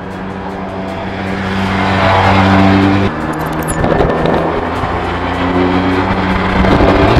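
Motorcycle engine accelerating, its noise swelling around two seconds in and again near the end, over background music.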